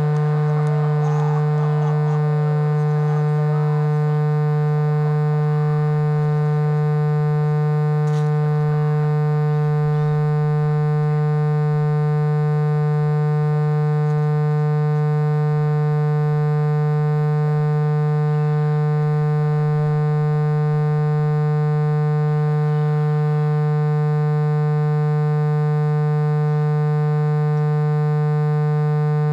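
Loud, unchanging electrical hum: one low pitch with a ladder of evenly spaced overtones, drowning out the field sound. Faint wavering higher sounds sit under it in the first few seconds.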